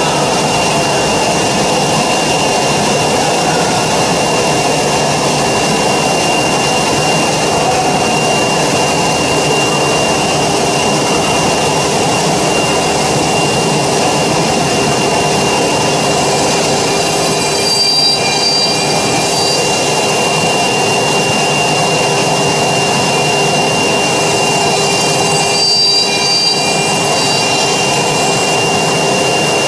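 4-axis CNC router with its electric spindles running at speed, a steady high whine over a loud machine noise, as the horizontal spindle drills holes into the edge of a wood panel. Two brief changes in the sound come about 18 and 26 seconds in.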